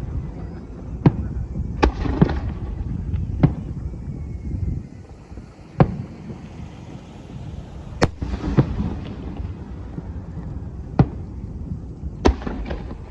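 Aerial fireworks shells bursting: sharp bangs every second or few seconds, some followed by a spreading crackle, over a continuous low rumble of the display.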